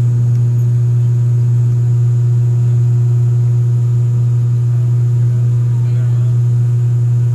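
Steady, loud low drone of an ATR 42-600's twin Pratt & Whitney PW127 turboprops heard inside the cabin, dominated by a deep propeller hum, with the engines at climb power just after takeoff.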